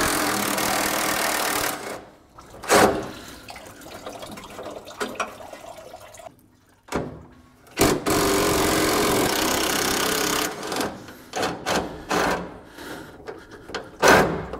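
Cordless DeWalt impact driver hammering on radiator mounting bolts in two steady bursts, about two and three seconds long. Clanks of tools and metal and handling noises come between them.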